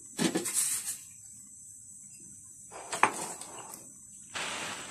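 Granulated sugar poured from a cup into a plastic blender jug onto raw eggs, in short rushes: one at the start, another just before three seconds in with a sharp knock, and a third near the end.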